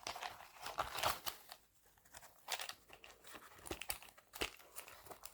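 Small tools and their plastic packaging being handled: crinkling rustles and light clicks, on and off, fairly faint.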